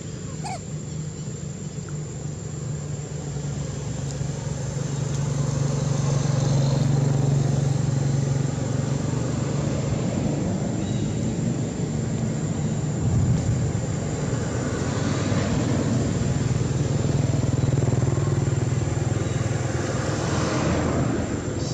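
Motor vehicle engines running on the adjacent road: a steady low rumble that swells about five seconds in and stays up, with a thin steady high tone above it.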